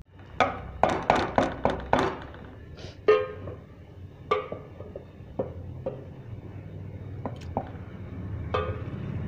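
A metal ladle knocking and scraping against an aluminium cooking pot. There is a quick run of five or six clatters in the first two seconds, then a few single knocks that ring briefly, over a low hum.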